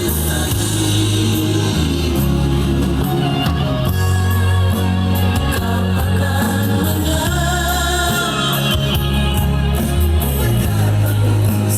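A song with singing, played loud through an old Polytron GD 812 mini compo stereo, with strong, steady bass.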